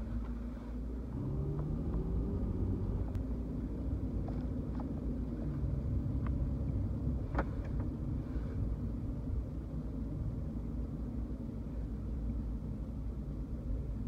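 A car's engine and road noise while driving. The engine note rises as the car pulls away about a second in and again about five seconds in, over a steady low rumble. A few small clicks or knocks are heard, the sharpest about seven seconds in.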